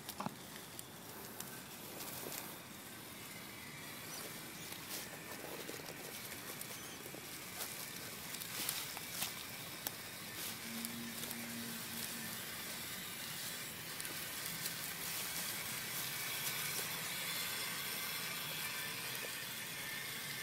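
RC4WD Timberwolf radio-controlled scale crawler driving over dirt and leaf litter: a steady hiss of tyres and ground noise, with scattered crackles and clicks and a faint, steady high whine.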